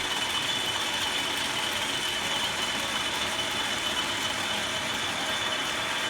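Restored 1928 Ehrlich flat-belt-driven metal lathe running steadily, a constant mechanical noise with a steady high whine.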